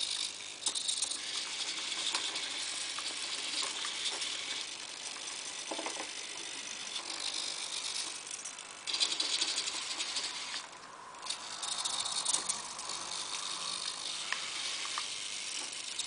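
Model Hitachi Zaxis 210 excavator's small electric motors and gears buzzing in short spells, stopping and starting as the boom and bucket move.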